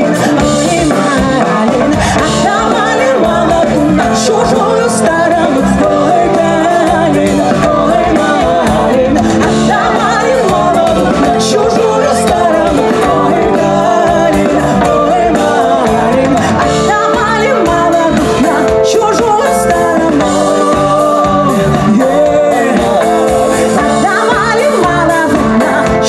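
A folk band playing live: singing over instruments with a steady beat.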